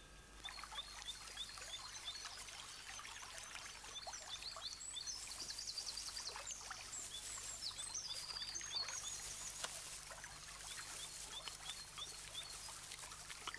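Many short, high-pitched chirps and squeaks, some repeating at an even pace and others in quick runs, over faint rustling and small clicks.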